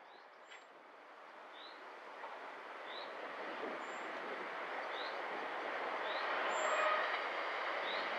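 Approaching Class 66 diesel freight locomotive and its train, a steady rumble that grows louder throughout. A small bird chirps about once a second over it.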